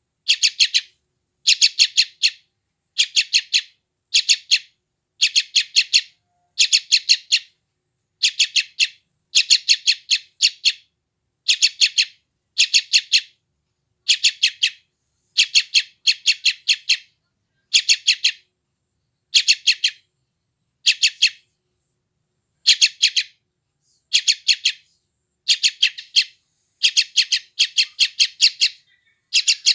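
Sooty-headed bulbul (trucukan) chick calling hungrily: short bursts of several rapid, high chirps, about one burst a second, repeated steadily.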